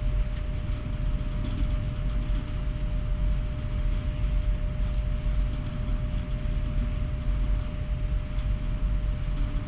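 Wind buffeting the microphone on a Great Lakes freighter's deck: a steady low rumble that flutters quickly in loudness, with a faint steady hum.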